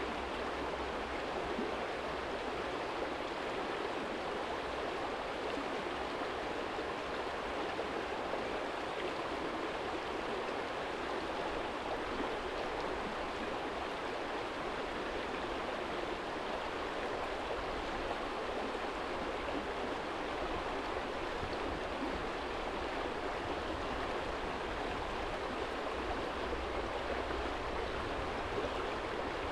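Small shallow stream running over a stony bed: a steady, even rush of water with a low rumble underneath.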